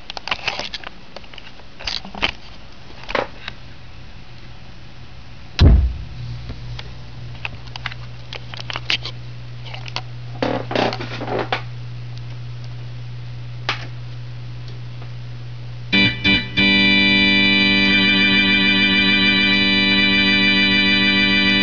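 Hammond L102 organ heard through its built-in amplifier: scattered clicks and knocks, a loud thump about six seconds in, then a steady low hum. About sixteen seconds in, two short stabs are followed by a held chord with a wavering vibrato.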